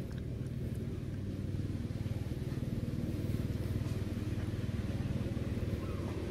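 A motor vehicle engine running steadily, a low rumble that swells a little through the middle.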